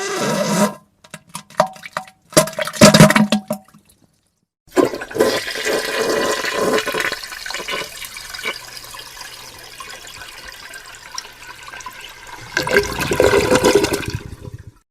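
A few short, loud wet bursts of diarrhea and fart noises in the first three seconds. After a second of silence a toilet flushes for about ten seconds, swelling again near the end and cutting off suddenly.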